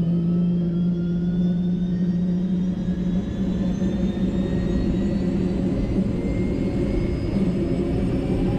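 Helicopter turbine engine spooling up during start-up: a whine that rises steadily in pitch over a steady low drone.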